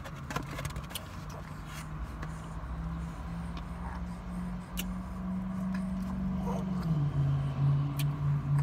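Car engine idling, a steady low hum that creeps slowly up in pitch and then settles lower and louder about seven seconds in. A few light clicks and taps sound over it.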